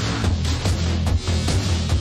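Electronic dance music from a DJ mix: a heavy bass line under a steady, driving drum beat.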